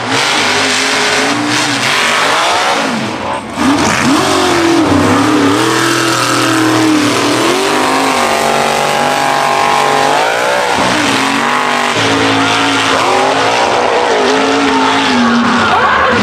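Mega truck engines racing at high revs, their pitch rising and falling as the drivers work the throttle, with a short dip about three seconds in.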